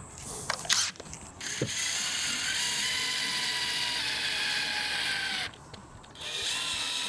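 DeWalt cordless drill drilling pilot holes through a metal leg bracket into a table top: a few clicks in the first second, then the drill motor whines steadily for about four seconds, stops briefly, and starts again for a second hole about six seconds in.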